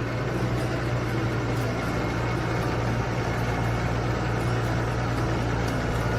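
A steady low mechanical hum with a constant drone and even noise over it, like a motor or engine running.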